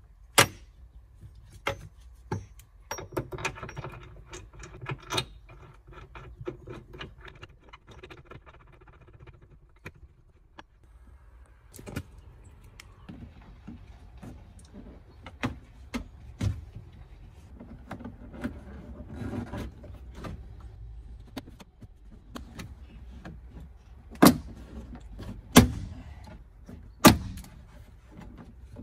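Metallic clinks, clicks and knocks of hand tools and seatbelt hardware as a car's seatbelt anchor is bolted back into place, with a run of rapid clicking from about three seconds in for several seconds, and three loud knocks near the end.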